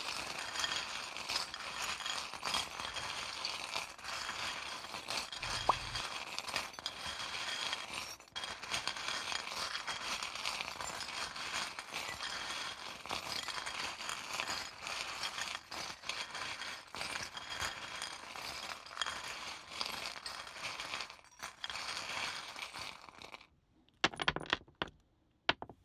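A handful of small casting charms shaken and stirred together, rattling and clinking continuously for over twenty seconds. The rattling stops abruptly, and a few separate knocks follow near the end.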